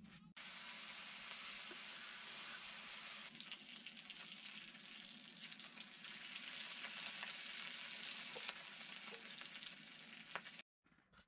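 Food frying in a pan: a steady sizzle with many small crackles and pops. The sound changes abruptly about three seconds in and cuts off sharply just before the end, as at edits between clips of the same frying.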